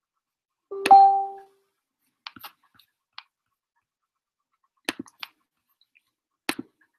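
A few scattered sharp clicks from computer mouse and keyboard use, with a short beep about a second in.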